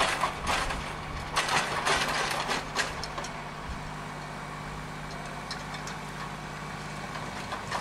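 Small farm tractor's engine running at a steady idle, an even low hum that stops shortly before the end. Louder noisy bursts come over it in the first three seconds.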